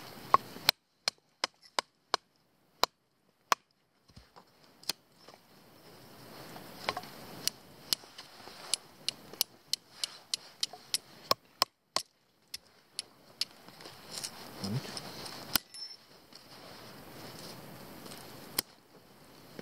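Irregular sharp wooden clicks and snaps from kindling being worked by hand and with a knife. They come sparsely at first, then about two a second for several seconds in the middle.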